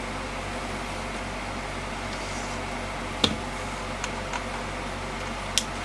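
Steady hum of an air conditioner running. A few sharp clicks of a tool working on the plastic tube being taken apart, the loudest about three seconds in and another near the end.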